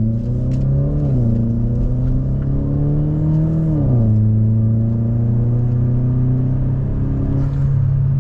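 2014 Chevy Cruze's 1.4-litre turbocharged four-cylinder, with an aftermarket turbo, downpipe and ZZP 3-inch exhaust, heard from inside the cabin under hard acceleration. The engine note climbs and drops sharply at two upshifts, about a second in and about four seconds in, then rises slowly again and eases off near the end.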